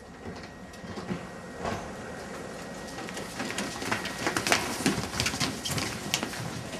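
Many footsteps and the shuffling of a group of people stepping aboard a train through its open door, a patter of clicks and knocks that grows busier about halfway through. Under it runs the steady hum of the standing electric commuter train.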